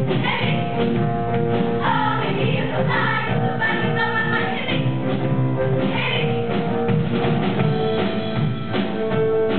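Women's show choir singing together in harmony, holding long notes.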